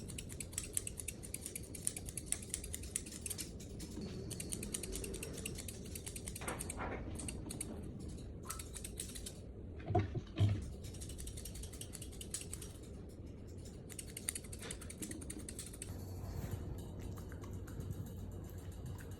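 Grooming scissors snipping through fur in rapid, irregular quick clicks, with two short low knocks about ten seconds in.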